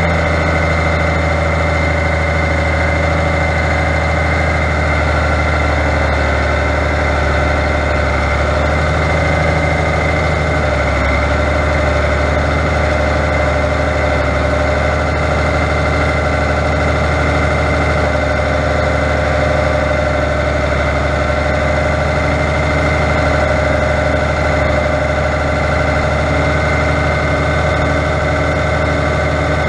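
Fiatagri 100.90 tractor's six-cylinder diesel engine running steadily, heard close up from on board, while it drives the front loader lifting a round hay bale onto a stack.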